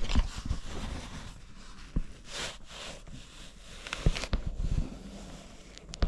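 Seam ripper unpicking the stitching of an old vinyl window from canvas: scattered small clicks and knocks of threads and handling, with a couple of brief rustling swishes of canvas and vinyl about two and a half seconds in.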